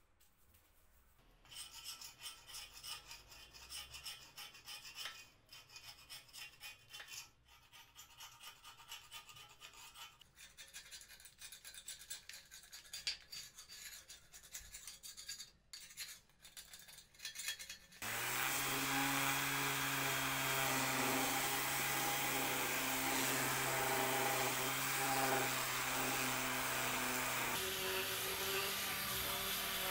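Quick, uneven hand-scrubbing strokes on a painted metal bench frame. About two thirds of the way in this gives way to an electric random orbital sander running steadily and much louder, sanding a weathered wooden bench slat. The sander's pitch shifts near the end.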